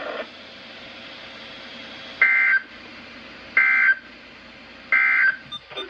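NOAA Weather Radio SAME end-of-message data bursts: three short digital tone bursts about a second and a half apart, marking the end of the weekly test alert. Faint radio hiss lies between them.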